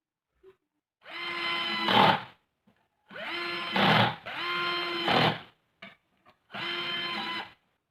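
Small power tool motor run in four short bursts, each a steady whine that rises briefly as it spins up, with noisier, louder moments near the ends of the first two runs.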